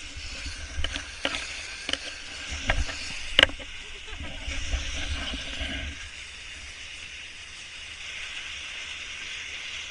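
Crunching steps on snow and the phone being handled, with a few sharp knocks in the first few seconds, the loudest about three and a half seconds in, over a steady outdoor hiss.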